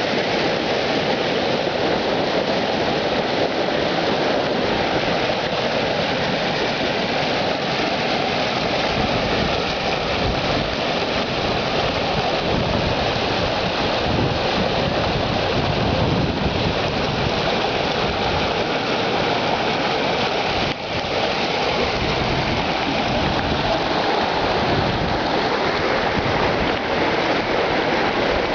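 Waterfall: a loud, steady rush of falling water that holds unbroken throughout.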